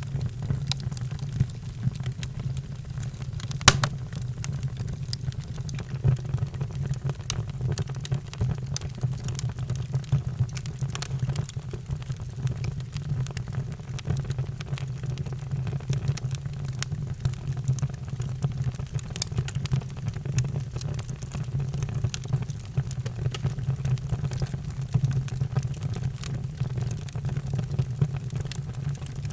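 Fire in a fireplace crackling, with irregular small pops over a steady low rumble; one louder pop about three and a half seconds in.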